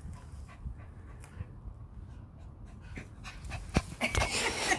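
Schipperke dogs panting as they play, with a few sharp clicks about three seconds in. Near the end the sound gets louder and noisier as one dog comes right up to the microphone.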